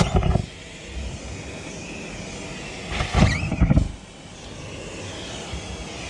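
Gas-station car vacuum running steadily through its corrugated hose, with two louder, rougher rushes of suction as the nozzle works over the boot carpet: one right at the start and one about three seconds in.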